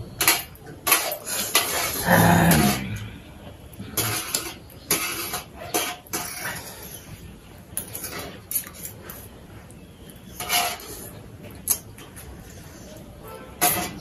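Spoons and forks clinking and scraping against metal plates as two people eat noodles, in irregular sharp clicks. A brief vocal sound comes about two seconds in.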